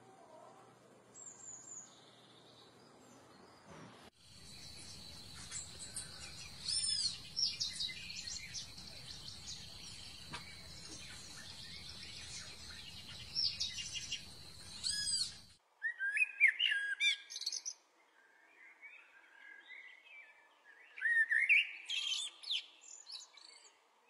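Wild birds chirping and calling, with quick arching chirps and short trills over a steady high-pitched hum. The sound changes abruptly twice, about four seconds in and again past the middle, to a quieter set of chirps.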